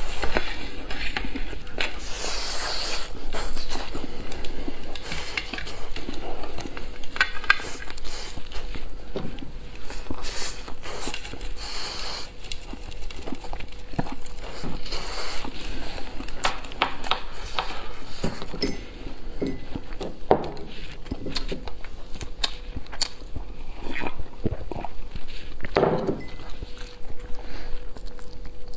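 Close-up eating and handling sounds from crispy fried food on bamboo skewers: irregular crackling, crunching and sharp clicks as the skewers are handled against a plate, dusted with seasoning and bitten.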